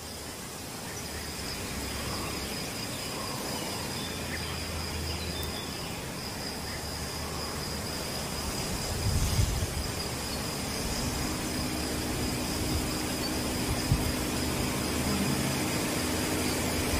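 Insects trilling steadily in a high thin tone over the low, even running of a Dacia Duster's engine as the SUV crawls slowly over a dirt mound. A dull thump comes about halfway through, and a steadier low hum joins about two-thirds of the way in.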